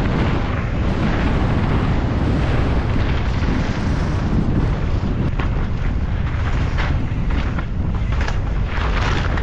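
Wind rushing over the microphone as a mountain bike descends a dirt and gravel trail at speed, tyres rolling over the loose surface. In the second half the bike knocks and rattles over roots several times.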